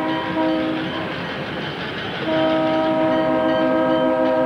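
Diesel locomotive's air horn sounding a chord of several notes. It breaks briefly near the start and stops about a second in. It sounds again a little after two seconds and is held as a long blast.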